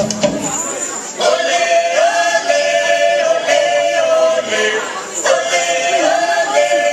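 Music with several voices singing long held notes, the drumming dropping out just as the sung notes begin about a second in.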